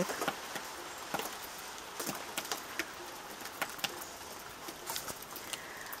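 Light patter of scattered raindrops over a soft steady hiss.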